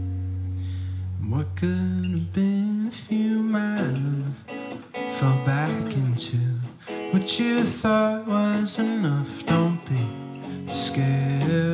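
A live indie band playing, led by an electric guitar. A held chord rings out and fades for the first couple of seconds, then picked and strummed guitar chords come in, with some singing over them.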